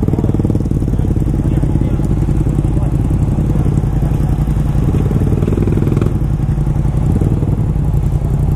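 Motorcycle engine idling steadily, with an even low pulsing and no revving.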